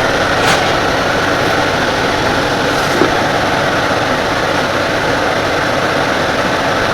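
Portable 12000 BTU air conditioner running, its fan and compressor giving a steady hum and rush of blowing air.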